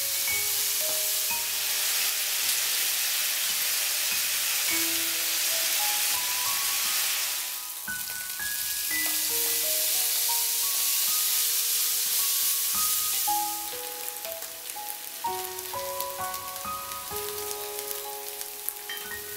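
Food sizzling as it fries in a hot pan, dying down about eight seconds in, picking up again, and dying down once more about two-thirds of the way through.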